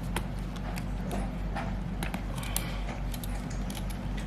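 Scattered light clicks and taps of small parts being handled, with a little cluster about two and a half seconds in, over a steady low hum.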